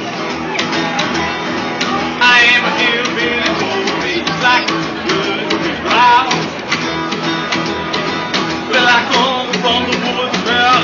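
Rockabilly band playing live, with guitar to the fore.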